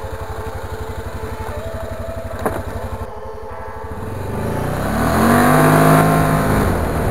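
ATV engine idling with an even putter, then the quad's engine revving up and running hard under acceleration, its pitch rising and the sound loudest about two seconds before the end.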